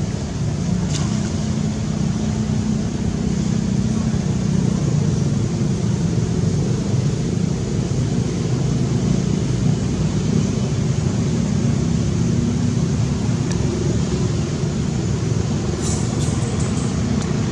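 Steady low rumble with an even hiss over it, with faint clicks about a second in and again near the end.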